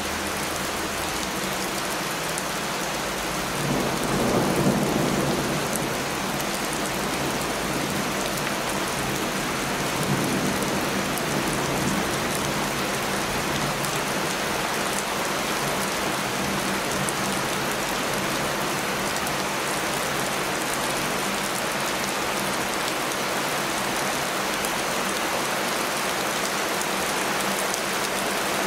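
Heavy rain falling steadily in a dense, even hiss. A low rumble of thunder swells up about four seconds in and lasts a couple of seconds, with a fainter one about ten seconds in.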